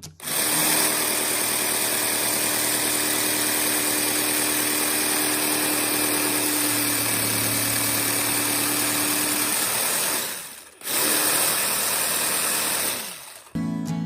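An electric motor-driven tool running steadily for about ten seconds, stopping for a moment, then running again briefly before cutting off.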